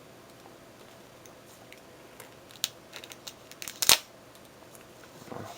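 Scattered sharp clicks and taps of a DVD box set being handled, with a cluster near the middle that ends in one loud snap and a faint rustle near the end.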